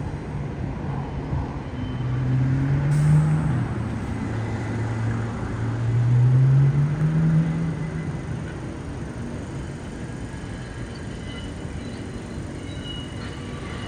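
A road vehicle's engine accelerating past. Its pitch climbs, drops back about three and a half seconds in as at a gear change, then climbs again and fades away after about eight seconds.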